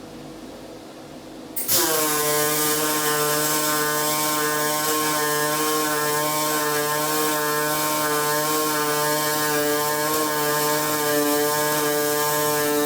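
Pulsed MIG welding arc on 5 mm aluminium with 1.2 mm aluminium wire, single pulse mode. After a short quiet pause the arc strikes about two seconds in and runs steadily: a stable pitched hum over a hiss.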